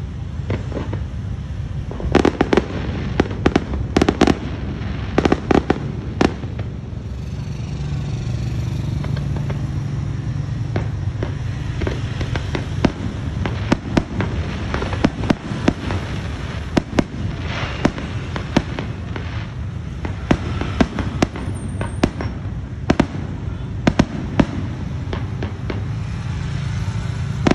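Fireworks display: rapid sharp bangs of bursting shells and firecrackers, clustered thickly in the first few seconds and then more scattered, over a steady background noise.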